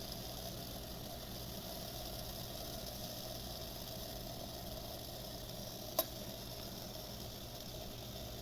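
Pot of homemade herbal remedy simmering on a stove: a steady low hiss, with one sharp click about six seconds in.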